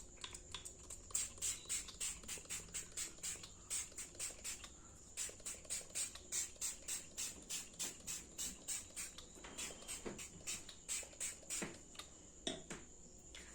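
Trigger spray bottle misting water onto hair in quick repeated squirts, about three to four a second, with a few short pauses.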